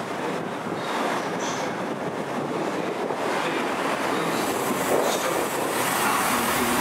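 A train running on the rails through the station: a steady noise of wheels on track, with brief faint high squeals about a second and a half in and again about five seconds in.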